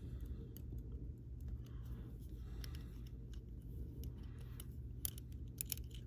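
Faint small clicks and taps of metal tweezers and plastic as a red plastic insert is worked into a waterproof automotive wire connector, with a cluster of sharper clicks about five seconds in.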